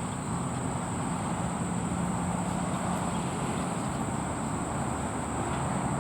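Steady vehicle traffic noise with a low engine hum, under a continuous high-pitched insect drone.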